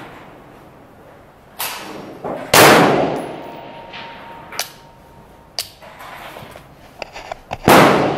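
Two loud rifle shots from an AR-15-style rifle, about five seconds apart, each with a long echoing tail. Fainter sharp knocks and clicks come between them.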